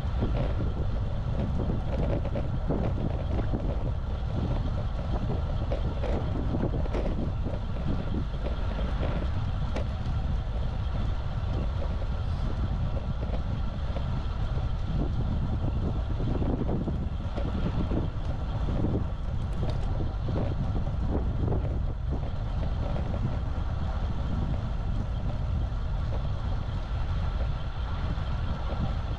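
Steady wind rushing over the microphone of an action camera riding on a moving road bike, over a low rumble from the road.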